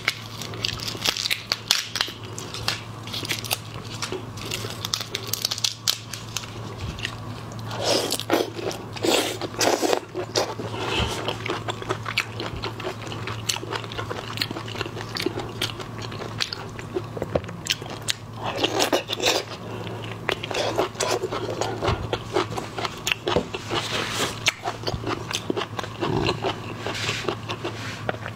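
Close-miked eating of raw marinated shellfish: crunchy bites and wet chewing in irregular bursts. A steady low hum runs underneath.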